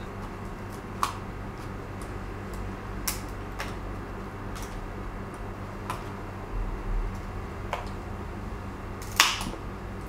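Plastic case of an Apple MacBook power adapter being pried open with a screwdriver after heating: a string of sharp clicks and cracks as the glued seam gives, the loudest crack near the end, over a steady low hum.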